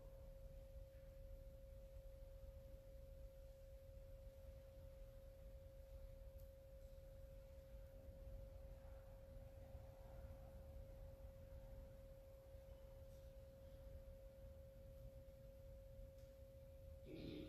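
Near silence: room tone with a faint steady pure tone held throughout over a low rumble, and a short sound just before the end.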